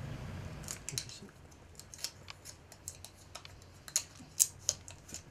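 Self-adhesive aluminium foil tape crinkling in irregular sharp crackles and clicks as fingers press and mould it around a small wooden lure body, with the loudest crackles near the end.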